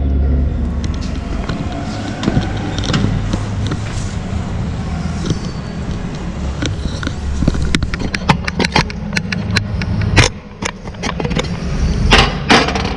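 A steady low mechanical hum of running machinery under handling noise: a run of sharp clicks and knocks starts past the middle, with two short, loud, hissy bursts near the end.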